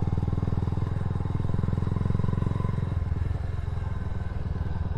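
Motorcycle engine running while riding, a steady rapid pulsing of exhaust beats that eases slightly about three seconds in.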